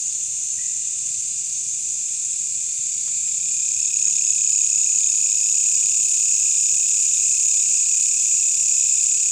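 Dense night chorus of insects: a steady, shrill high-pitched buzzing with a weaker, lower band beneath it, swelling slightly about four seconds in.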